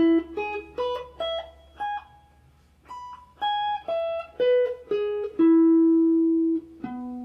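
Acoustic guitar playing an E-chord arpeggio, one plucked note at a time. The notes climb for about two seconds, pause briefly, then step back down and finish on a long held low note.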